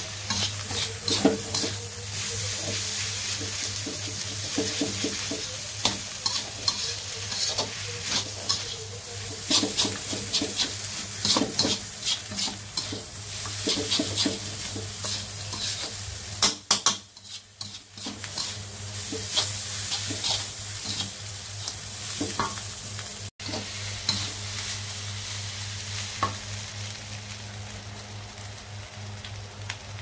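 Noodles stir-frying in a wok: a steady sizzle with a metal spatula scraping and clacking against the pan again and again as the noodles are turned and tossed.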